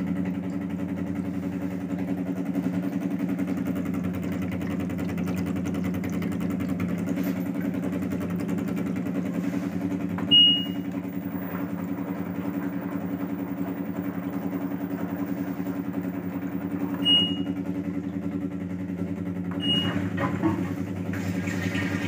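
LG front-loading washing machine in its service test mode, its drain pump running with a steady hum. The control panel beeps briefly three times in the second half.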